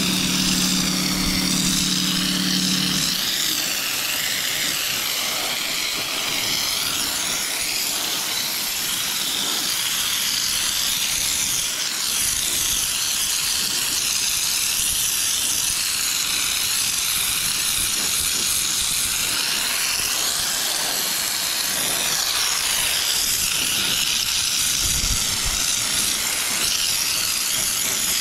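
Compressed-air spray gun hissing steadily as it sprays underbody coating. A low motor hum underneath stops about three seconds in.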